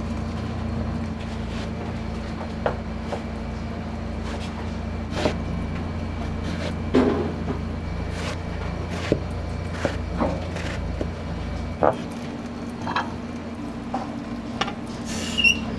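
Restaurant kitchen work: scattered short knocks and clicks of utensils and cookware over a steady machine hum. The deepest part of the hum cuts off about twelve seconds in, and a brief metallic ring sounds near the end.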